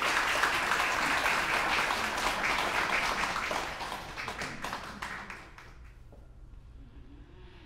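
Audience applauding, the clapping dying away about five seconds in, leaving quiet room sound with a few stray knocks.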